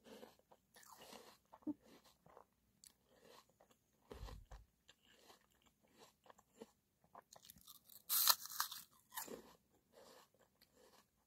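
Someone biting and chewing crisp apple: moist crunches at irregular intervals, the loudest about eight seconds in.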